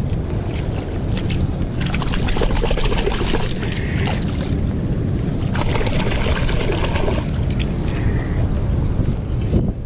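Sea water washing and sloshing over a rocky reef, twice swelling into a louder rush, with wind rumbling on the microphone.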